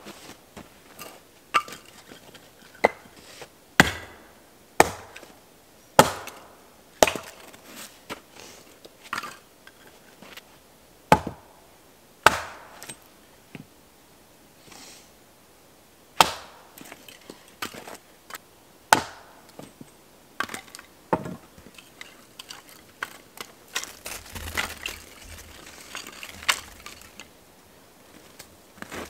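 An axe chopping firewood on a block: a dozen or so sharp, unevenly spaced chops, then a stretch of quicker cracking and splintering near the end.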